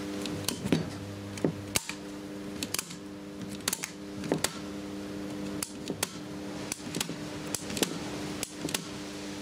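Steady electrical mains hum from an RCD circuit wired into a dead short and pulling heavy current, with irregular sharp clicks and crackles throughout.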